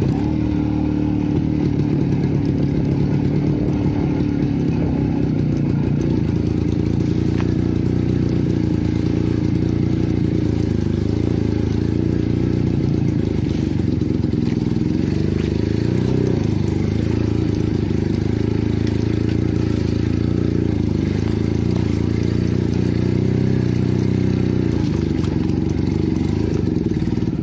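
A 50-year-old Jawa motorcycle's engine running steadily while the bike is ridden over a rough dirt trail, with some clatter from the bike on the bumps.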